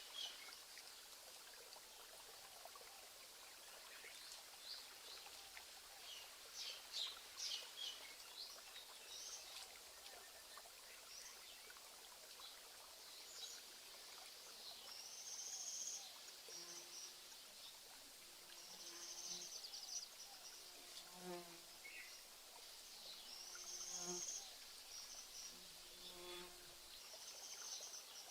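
Faint nature ambience. Birds chirp in short high notes early on. From about the middle, high buzzing trills lasting a second or two repeat every few seconds, and faint low notes repeat alongside them. A soft steady hiss runs underneath.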